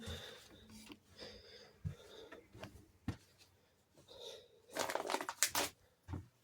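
Handling noise as plush toys and other items are picked up and moved: light rustling, soft knocks and clicks, with a louder stretch of rustling about five seconds in.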